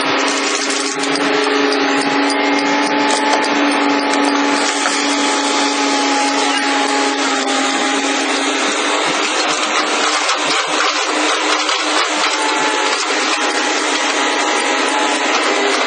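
Hydraulic pile-breaking machinery running: a loud, steady mechanical drone with a constant whine and dense grinding noise.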